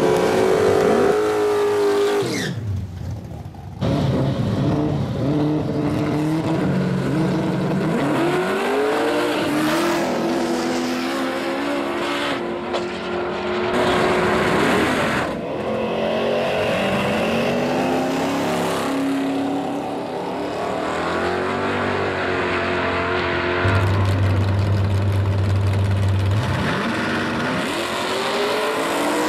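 Drag cars launching and accelerating hard down the strip, their engine pitch climbing with each run, in several short clips cut together. Near the end the engines hold a steady low note on the starting line, then rise again as the cars launch.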